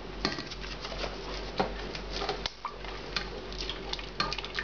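Spoon stirring yogurt into a liquid curry base in a pot, with irregular clicks and scrapes of the spoon against the pot.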